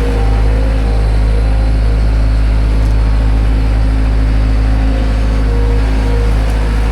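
Manitou telehandler engine running steadily: a loud, even low drone with a steady hum over it.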